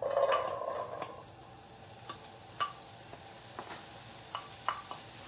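Diced prosciutto landing in olive oil in a stainless steel skillet and sizzling: a loud burst of sizzle as it goes in, settling within about a second to a steady fry with scattered pops.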